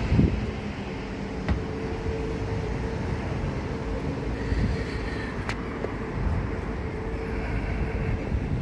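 Steady low rumble of a vehicle on the move, with a faint steady hum and a few light clicks.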